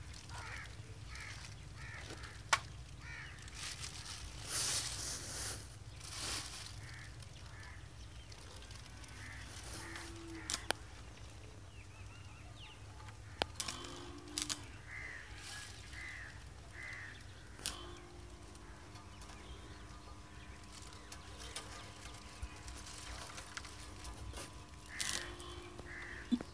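Crows cawing in runs of short calls about half a second apart, with a few sharp knocks in between.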